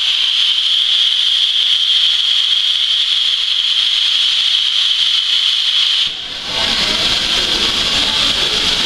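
Steam locomotive hissing steadily with escaping steam, a loud high hiss that drops out for a moment about six seconds in and then comes back with a low rumble under it.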